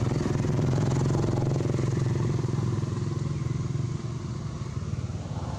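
A small engine, motorcycle-like, running steadily with a fast even pulse; it is a little quieter in the last second or so.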